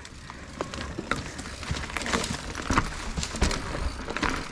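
Mountain bike riding down a dirt trail: irregular clicks and knocks as the bike rattles over the ground, over a steady low rumble.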